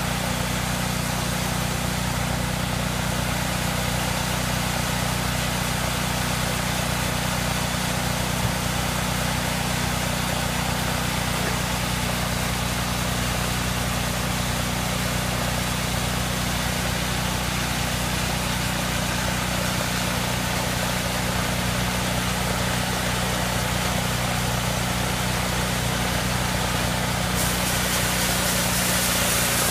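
Bandsaw sawmill's engine running steadily, with a single knock about eight seconds in; a louder hiss comes in near the end.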